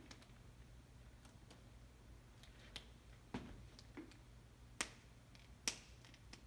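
Geiger counter clicking at irregular intervals as it detects beta particles from a strontium-90 source, a sparse run of sharp single clicks over a low hum.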